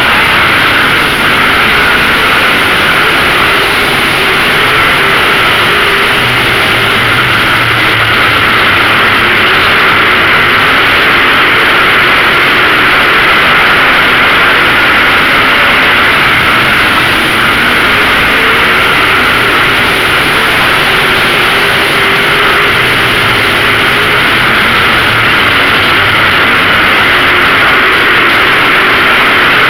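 Lightning late model race cars running laps together, a loud, steady mass of racing engines with no let-up.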